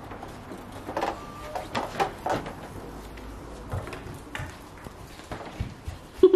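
Scattered light knocks and clatters, about ten spread over several seconds, with a louder knock near the end.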